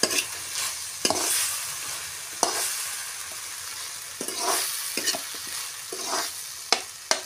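Spatula scraping and stirring diced potatoes, onion and tomato in a kadai while the oil sizzles steadily underneath, with a sharp scrape against the pan about every second.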